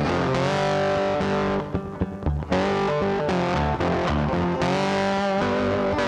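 Background music led by guitar, with sustained notes; it drops back briefly about two seconds in, then carries on.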